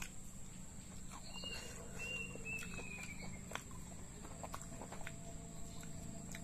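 Quiet eating of raw beef: scattered small clicks of chewing over a faint steady hum, with a short faint whistle falling in pitch about a second and a half in.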